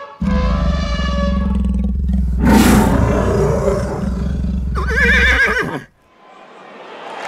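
A deep animal-like roar over a heavy low rumble, lasting about five and a half seconds. There is a louder blast about two and a half seconds in and a high warbling cry near its end. After it cuts off, a hiss rises.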